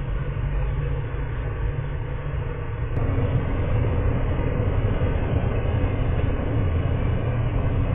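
Steady low rumble of outdoor noise from a building-mounted falcon nest camera's microphone, with no calls. It steps up abruptly to a louder level about three seconds in.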